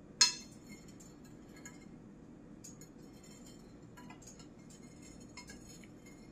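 Metal spoon clinking against a glass baking dish while stirring liquid Jell-O to dissolve the last of the gelatin: one sharp clink just after the start, then light scattered taps.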